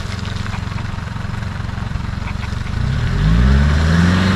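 An off-road SUV's engine running steadily under load on a muddy hill climb. About three seconds in it revs up and grows louder, its pitch climbing and then easing off near the end.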